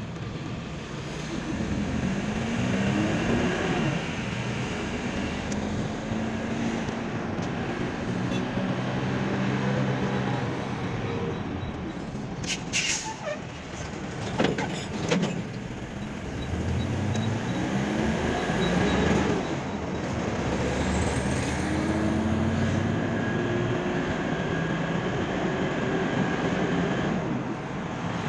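Car engine and road noise heard from inside the cabin as the car drives in traffic. The engine pitch rises several times as it accelerates and drops back at gear changes. A few sharp clicks or knocks come about halfway through.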